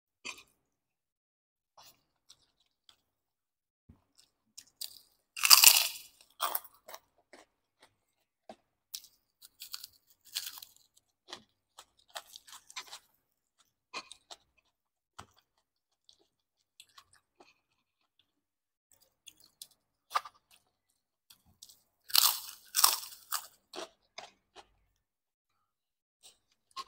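Close-miked crunching of a crisp fried kerupuk cracker in two loud bouts, about five seconds in and again some seventeen seconds later, with soft chewing and scattered small clicks between.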